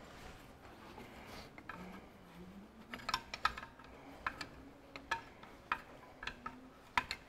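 Spanner working the 5/8 in injector pipe nuts on a Ferguson 23C diesel engine's cylinder head: light rubbing at first, then from about three seconds in, sharp metallic clicks, often in pairs, every half second to a second as the nuts are loosened.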